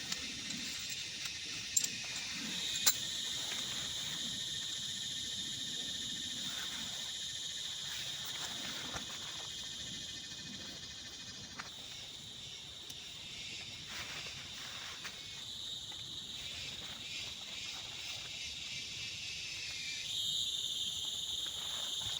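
Insects, crickets or the like, trilling steadily in a high continuous chorus, with two sharp clicks about two and three seconds in.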